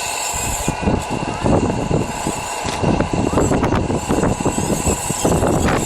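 Radio-controlled model vehicle running: a steady whine over rough, rumbling noise that grows louder about a second and a half in.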